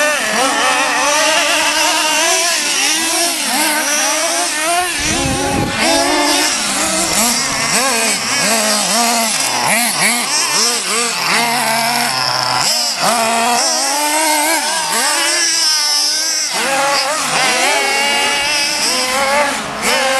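Several radio-controlled off-road cars' small nitro engines buzzing together at a high pitch, each rising and falling over and over as they throttle up and back off.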